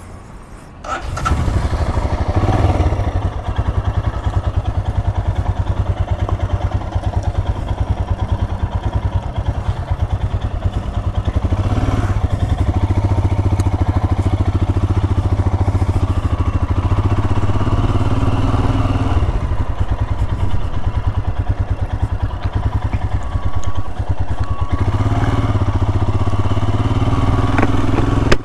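Royal Enfield Himalayan motorcycle's single-cylinder engine coming in loud about a second in and then running steadily as the bike is ridden, its firing pulses even throughout.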